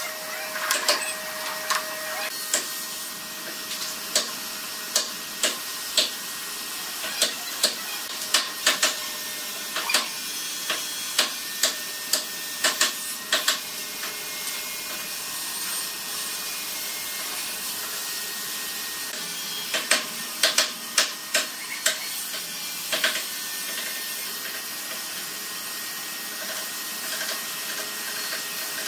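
Sharp wooden knocks and clacks as pine boards are handled and set down on metal pipe clamps. They come in irregular runs, with a quieter stretch in the middle, over a steady background hiss.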